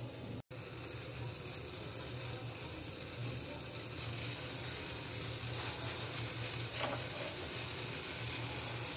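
Water at a rolling boil in a steel saucepan on a stove burner: a steady bubbling hiss that grows a little louder about halfway through.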